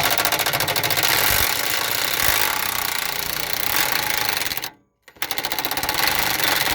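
Ryobi P235 brushed cordless impact driver hammering in reverse to loosen a riding mower's blade nut. It runs in one long burst, stops briefly just before the five-second mark, then runs again until near the end, and the nut comes loose.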